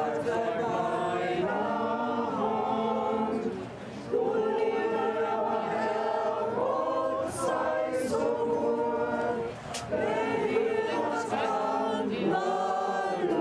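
A group of voices singing a German hymn together, in held notes, pausing briefly between phrases.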